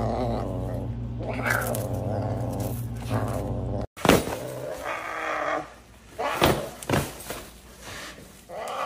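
A serval growling in a low, wavering, rattling tone as it mouths an onion. Then a serval tugs a fabric bag across a tile floor: a few sharp thumps and rustling.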